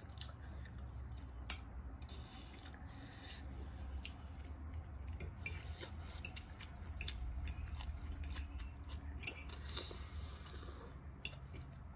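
Close-up eating sounds: a person biting and chewing a crisp fresh green vegetable with spicy cucumber salad, many short wet crunches and clicks of the mouth at an uneven pace.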